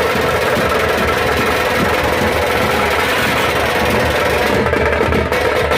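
Fast drumming: a dense, continuous run of rapid strokes, played loud and without a break.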